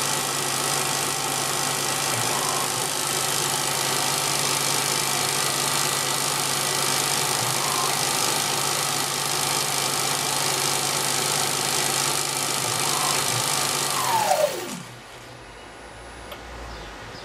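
Small CNC lathe's spindle motor running at steady speed with a whine, then switched off about fourteen seconds in: its pitch falls quickly as the spindle spins down toward a stop, leaving a low hum. This is the spindle stopping before a tool change.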